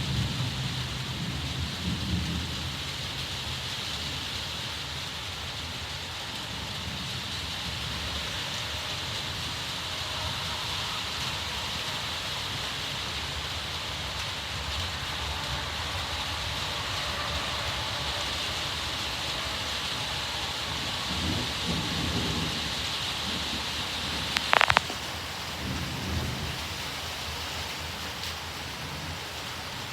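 Steady heavy rain hissing, with low rolling rumbles of thunder near the start and again about two-thirds of the way through. Near the end, a brief sharp knock is the loudest moment.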